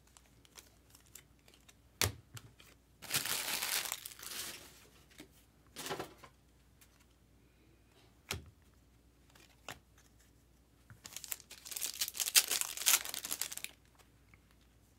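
Trading card pack wrappers being torn open and crinkled by hand, in two longer stretches about three seconds in and again about eleven seconds in, with a few single sharp taps as cards are handled.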